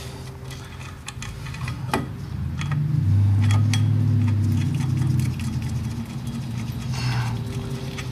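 Light metallic clicks and taps as the clutch pressure-plate bolts are fitted by hand around the flywheel of a VW 1600 engine, over a low hum that swells a few seconds in and then eases off.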